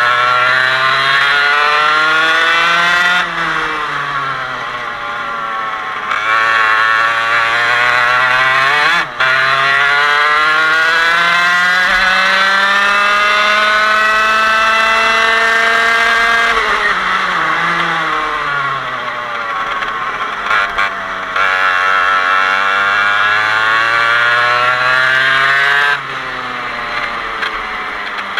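125cc Parilla two-stroke kart engine at racing speed, its note climbing steadily as it accelerates and dropping sharply under braking, four times over.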